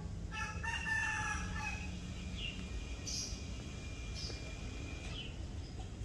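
Rooster crowing: one long call that starts full and draws out into a single held note lasting a few seconds, with brief small-bird chirps.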